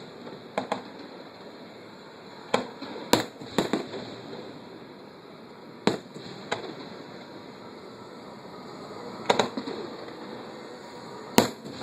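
Fireworks bursting: a string of about eight sharp bangs at irregular intervals, some in quick pairs, over a steady background hiss.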